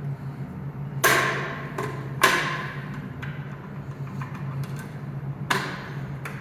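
A fire alarm manual pull station being worked by hand: three sharp metallic clacks, about a second in, a second later and near the end, each with a short ring after it, over a steady low hum.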